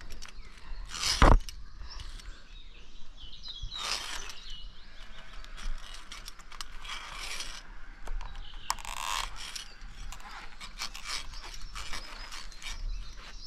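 Metal clicking and rattling of climbing safety gear on a high ropes course, carabiners and trolley working along the steel cable, with many scattered clicks and a few short rushes of noise.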